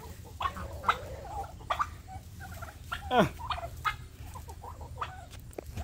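White domestic turkeys calling: a scatter of short calls, with one louder call falling in pitch about three seconds in.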